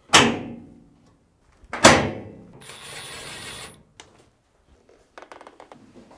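Top panel of a Samsung top-load washer shut down onto the cabinet: two sharp thunks about two seconds apart, each ringing briefly. Then about a second of even noise, and a few light clicks near the end.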